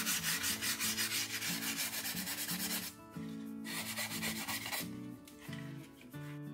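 Sandpaper (220 grit) rubbed quickly back and forth by hand over the filler on a model rocket's fin edges, in rapid even strokes of about five a second. The strokes stop about three seconds in and return for a short run around four seconds in. Soft background music plays underneath.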